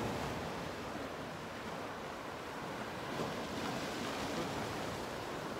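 Ocean surf washing and breaking against a rocky shoreline, a steady rushing sound.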